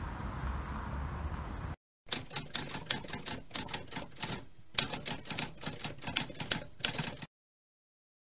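Outdoor wind and traffic noise that cuts off about two seconds in, followed by a run of typewriter keys clacking for about five seconds as a title is typed out, stopping abruptly.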